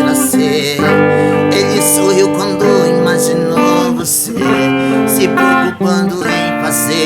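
Music led by a plucked and strummed acoustic guitar, a chord change every second or so.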